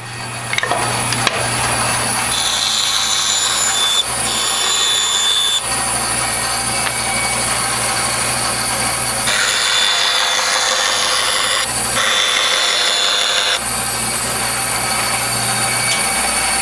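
Bandsaw running steadily with a low motor hum, its blade cutting through small wooden blocks in four short stretches: two from about two seconds in, and two more from about nine seconds in. The blocks are being sawn open along holes drilled in them.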